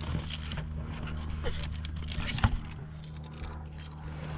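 Light clicks and clinks of small metal bolts and hardware being handled, with one sharper knock about two and a half seconds in, over a steady low hum.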